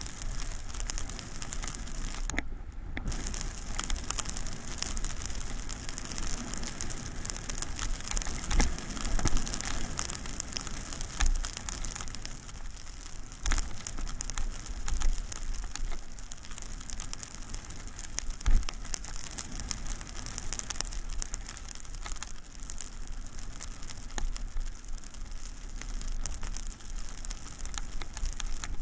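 Skis running fast over snow at about 20 mph: a steady crackling hiss of the bases and edges on the snow, with low wind rumble on the microphone. A few sharp knocks break through, the loudest about eighteen seconds in.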